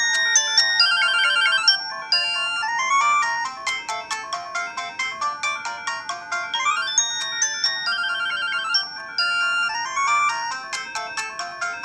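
Samsung SGH-X200 flip phone playing one of its built-in polyphonic ringtones through its speaker: a quick electronic melody with several notes sounding at once, its phrase starting over about every six and a half seconds.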